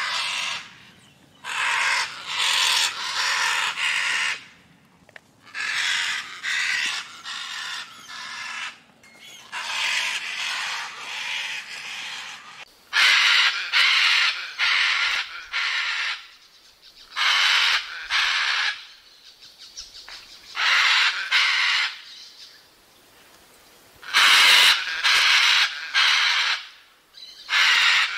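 Scarlet macaw screaming: loud, harsh, rasping calls repeated in bouts of one to several, with short pauses between.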